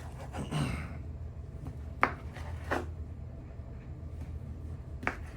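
Knife slicing cooked kielbasa sausage on a cutting board, the blade knocking sharply on the board about three times: near 2 s, just before 3 s, and near the end. A steady low hum runs underneath.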